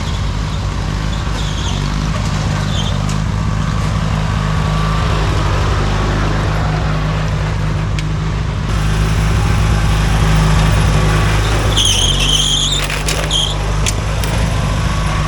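Riding lawn mower engines running steadily under load as the race mowers lap the course, getting louder a little past halfway. A few short, high-pitched squeals come near the end.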